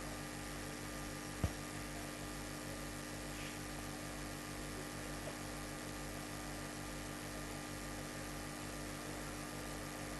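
Steady electrical mains hum with a stack of overtones and a light hiss, and one small click about a second and a half in.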